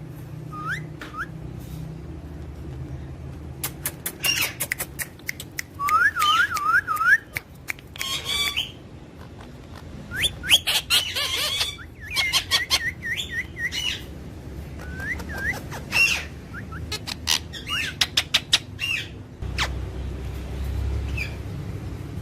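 Parrots chirping and squawking: short rising whistled notes, several in quick succession, mixed with sharp clicks and harsh calls, busiest in the middle and thinning out near the end.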